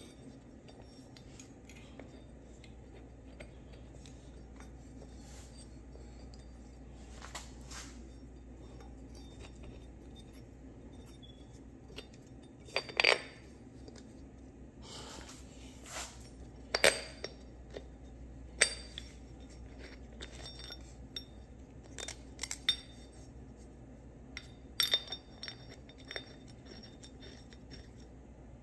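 Scattered metallic clinks and taps of a ratchet, socket and bolts against metal as a new engine mount is fitted, over a faint steady low hum. The loudest clinks come about halfway through.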